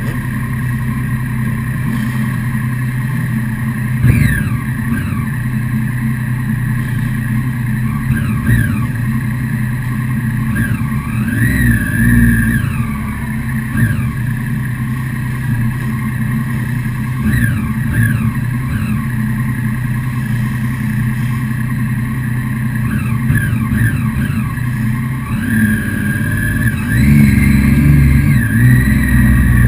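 Motorcycle engines idling in a stopped group, with throttle blips rising and falling in pitch several times. Near the end the engines get louder as the bikes pull away.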